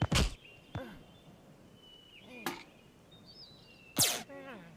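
Cartoon sound effects: a few sharp whooshing hits, each with a short falling pitched squeal or grunt, and thin electronic beep tones between them.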